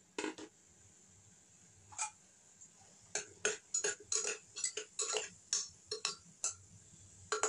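Spoon clinking and scraping against a pressure cooker as mutton and sliced onions are stirred: one click about two seconds in, then a run of sharp knocks about two a second.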